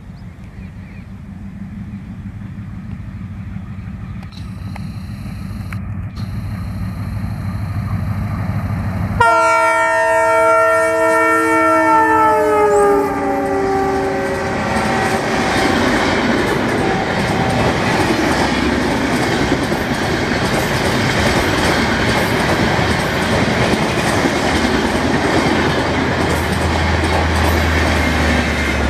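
Express train of LHB coaches approaching at high speed and growing louder, then its locomotive sounding one long horn blast about nine seconds in, its pitch dropping as it passes. The coaches then rush by with steady rolling noise and clickety-clack over the rail joints, and a low steady hum rises near the end as the generator car passes.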